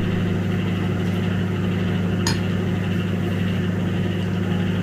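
Steady low electrical hum from a kitchen appliance, with a spoon clinking once against a glass bowl a little over two seconds in.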